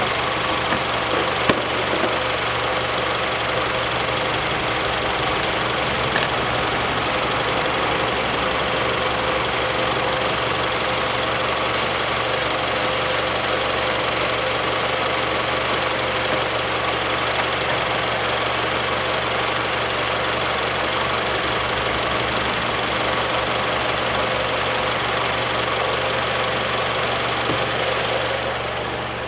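Mitsubishi 4B10 1.8-litre four-cylinder engine idling steadily and smoothly, warmed up. About halfway through, a ratchet clicks about ten times in a row as a bolt on the plastic engine cover is tightened. At the very end a thud as the bonnet shuts, after which the engine sounds quieter.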